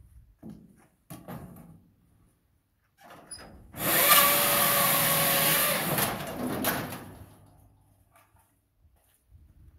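Scheitfix 25 kindling machine cutting a fed-in board into kindling: a loud burst of chopping and cutting noise lasting about two seconds, starting about four seconds in and trailing off over the next second. A few light knocks of wood being handled come before it.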